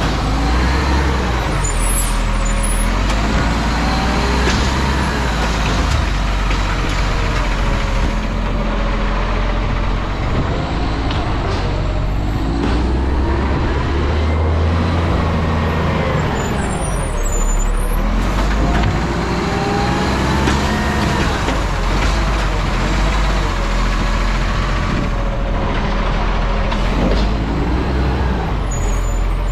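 Garbage truck's diesel engine running, its pitch rising and falling several times as it pulls away and slows between stops. Brief air hisses come about two seconds in, around seventeen seconds, and near the end.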